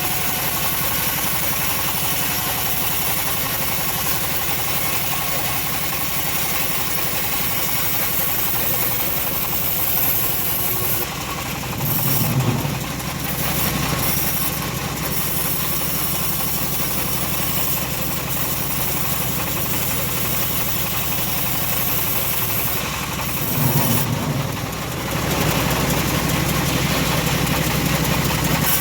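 Homemade bandsaw sawmill running with a steady machine drone, briefly surging about twelve seconds in and again near the end, after which it stays a little louder.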